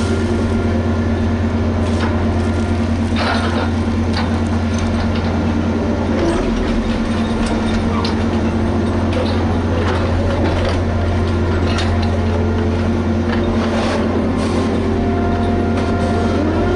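Liebherr HS 8200 dragline's diesel engine running steadily under load, a constant low hum, with short sharp knocks and clanks every second or two as the machine works.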